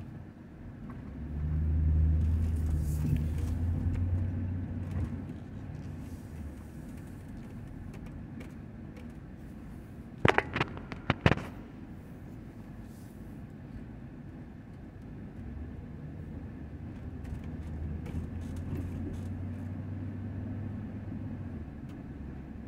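Engine and road noise heard from inside a moving car. A low engine drone swells about a second in and fades by about five seconds, then returns more faintly near the end. A quick cluster of sharp clicks comes about ten seconds in.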